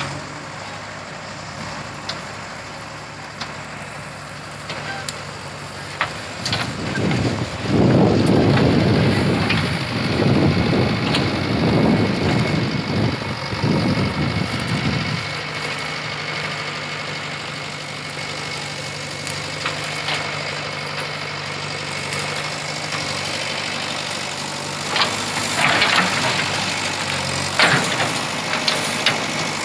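JCB 3DX backhoe loader's diesel engine running. It gets louder for several seconds while the backhoe arm works, then settles back to a steady idle. A few sharp clanks come near the end.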